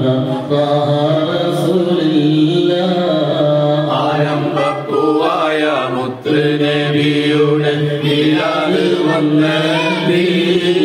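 A man's voice chanting an Arabic mawlid verse of praise for the Prophet through a microphone, in long, wavering held notes with only brief breaks.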